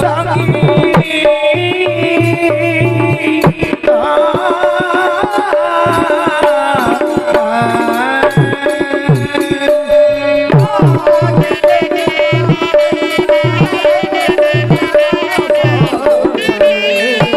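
Odia folk-theatre music: a hand drum keeping a steady beat under a wavering, ornamented melody, with one held note sounding again and again through it.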